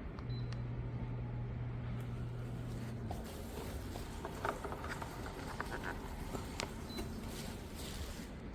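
Electric fan heater running with a steady blowing noise. A low hum stops about three seconds in, and a few small clicks follow.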